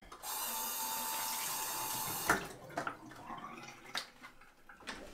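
Bathroom sink faucet running steadily for about two seconds while a toothbrush is wetted under it, then shut off with a sharp clunk. A few light clicks follow as the toothbrush and toothpaste tube are handled.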